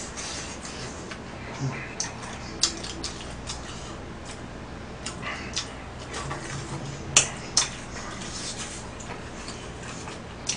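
Eating sounds: irregular clicks and taps of chopsticks against plastic takeout tubs, with chewing, a couple of louder clicks about two-thirds of the way in.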